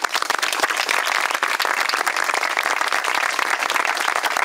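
A group of people applauding, steady hand-clapping.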